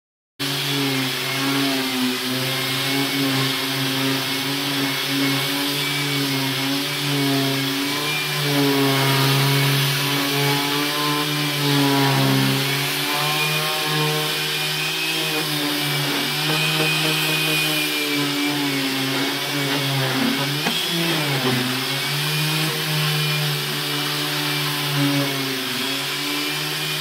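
Round-pad electric sander hooked to a dust extractor, running steadily as it sands the old oil finish off cedar boards. Its pitch wavers and dips briefly about three-quarters of the way through as it is pressed into the wood.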